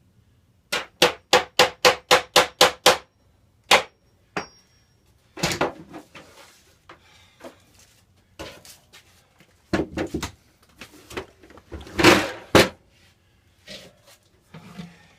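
A hammer driving a nail: a quick run of about nine even blows, then one more. Irregular knocks and clatter of handling follow, with one louder knock near the end.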